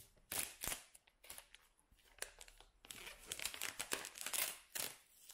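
Plastic wrapping on a smartphone box being crinkled and torn off in a series of short rustles and crackles, busiest from about three seconds in.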